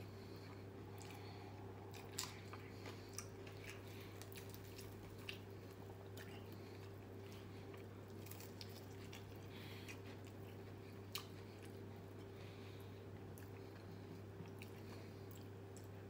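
A person biting into and chewing flour-breaded fried chicken: scattered sharp crunches and mouth clicks, the loudest about two seconds in and near eleven seconds, with quiet chewing between, over a steady low hum.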